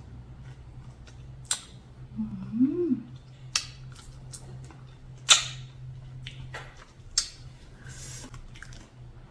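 Someone eating close to the microphone: four loud, sharp crunching bites or mouth clicks about two seconds apart, with fainter clicks between them. A short hummed "mm" that rises and falls comes a little after two seconds in.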